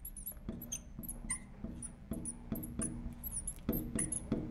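Marker tip squeaking and tapping on a glass lightboard while a word is written: faint, rapid short high-pitched squeaks, several a second.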